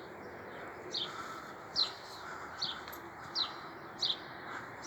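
A small bird calling in alarm: about six short, sharp, high notes, each falling in pitch, repeated roughly every three quarters of a second. It is raised at a red kite hunting overhead.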